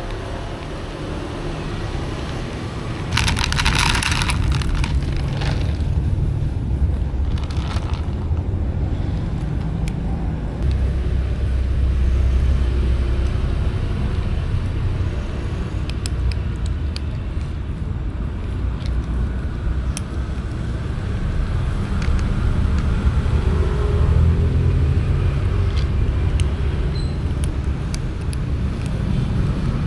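Steady low rumble of passing road traffic. A hissing noise rises about three seconds in and lasts a couple of seconds, and a shorter one comes near eight seconds.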